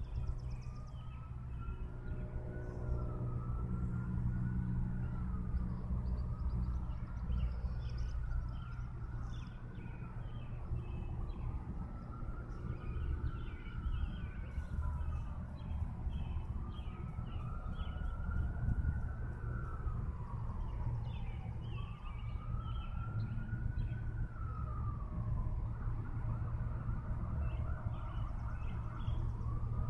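An emergency vehicle siren wailing, its pitch rising and falling slowly about every three seconds, over a steady low rumble.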